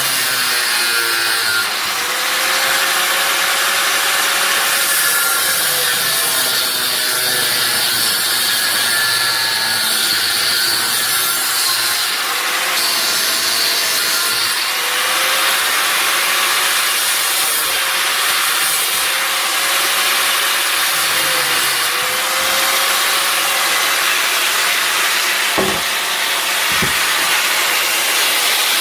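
A power tool cutting and grinding steel to shape a blanking plug for a frame tube, running continuously with its motor pitch dipping and recovering as it bites. Two short knocks near the end.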